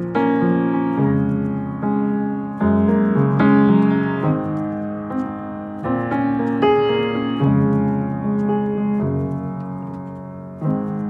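Upright piano playing an instrumental passage of sustained chords, a new chord struck about every second and left to ring.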